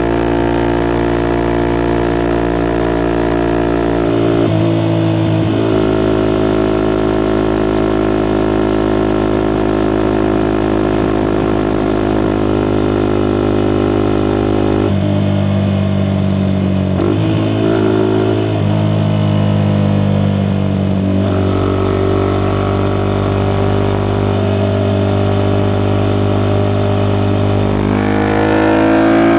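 Suzuki Gixxer SF 250's single-cylinder engine through a Yoshimura R11 exhaust, running at a steady engine speed with a few sudden changes in pitch, then revving up near the end.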